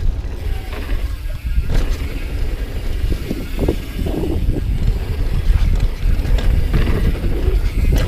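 Commencal Meta V4.2 mountain bike ridden fast down a dirt trail: tyres rumbling over the ground, with irregular knocks and rattles from the bike over bumps, under heavy wind buffeting on the camera microphone.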